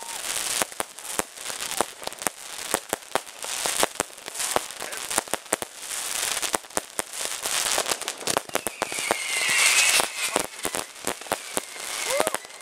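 Fireworks going off: a dense run of sharp cracks and pops from bursting aerial shells and firecrackers over a crackling hiss. A falling whistling tone sounds about nine seconds in.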